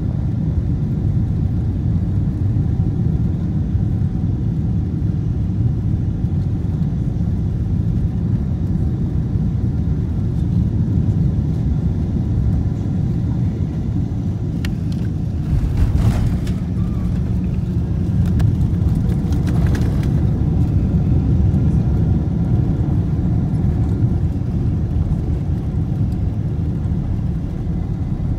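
Cabin noise of a Boeing 777 landing: a steady low rumble of engines and airflow, broken about halfway through by the jolt of touchdown on the runway, after which the rumble is louder for a few seconds as the airliner rolls out.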